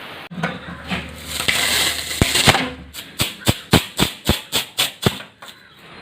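Work on the fridge door's outer metal skin as it is cut away for a viewing glass. A rough scraping noise is followed by a run of about nine sharp, even strikes, about four a second.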